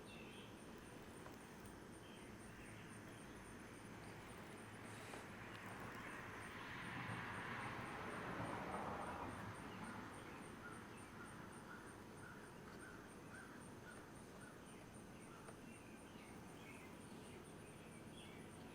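Faint outdoor background with birds chirping now and then. A soft rushing noise swells up and fades away around the middle.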